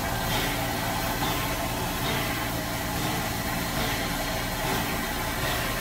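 USA S160 2-8-0 steam locomotive running slowly into a station. A steady rumble with a soft, regular beat a little more than once a second.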